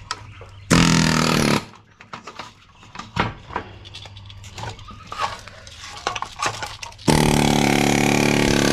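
Pneumatic air hammer with a chisel bit hammering components off a TV circuit board in two bursts: a short one about a second in, and a longer one starting near the end. Light clicks and clatter of loosened parts come in between.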